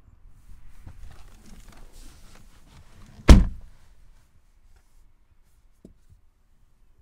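A Mercedes E-Class (W213) car door shutting with a single solid thunk about three seconds in. Rustling movement comes before it and a couple of faint clicks follow.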